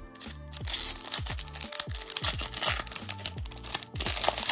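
Background music with a steady electronic beat, over the crinkling and tearing of a foil trading-card pack wrapper being opened.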